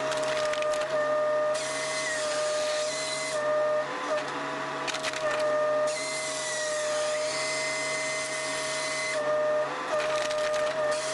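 A machine running steadily with a constant high whine over a low hum. A harsher hiss comes and goes every couple of seconds.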